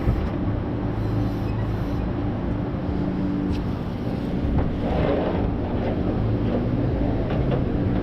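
A vehicle engine running steadily at idle, with a few light clicks and knocks over it.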